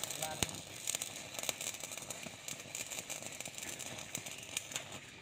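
Electric welding arc from a stick electrode crackling and sizzling with irregular sharp pops as it burns through steel rebar to cut it.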